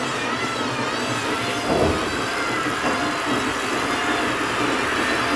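Electric jigsaw running and cutting into solid wood: a steady motor whine that wavers in pitch as the blade takes load, with a brief knock about two seconds in.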